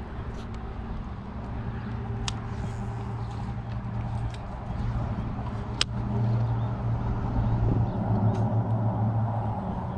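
A boat motor humming steadily, growing louder about six seconds in and stopping shortly before the end, with three sharp clicks spread through it.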